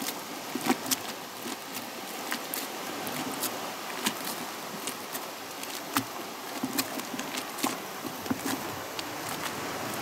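Rubber plunger pumped by hand in a bucket of hot soapy water, agitating a wet knitted wool piece to felt it: irregular splashes, squelches and sloshing over a steady hiss.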